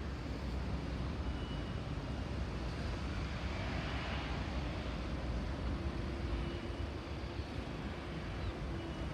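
Steady low rumble of outdoor background noise, with a faint steady hum joining about six seconds in.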